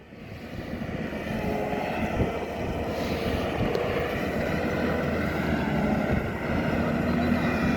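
Heavy truck on the move, its engine humming steadily over road noise. The sound fades in over the first second or so, then holds steady, with a brief knock about two seconds in.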